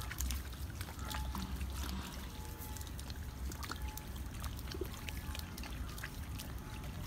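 Small splashes, trickles and squelches of muddy water as rice seedlings are pushed by hand into a flooded paddy field, in many short, scattered sounds over a low rumble.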